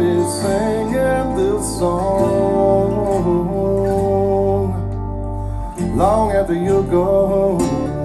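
Guitar-led music played back through a hi-fi system driven by BRZHIFI T300 Class AB mono block power amplifiers, with a brief dip in level a little before the six-second mark.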